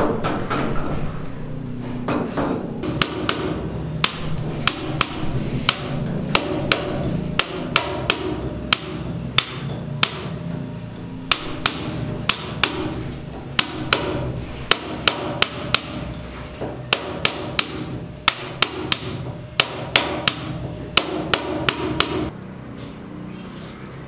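Hammer striking a steel chisel into a masonry wall: a long series of sharp metallic knocks, about two to three a second in short runs with brief pauses, stopping near the end.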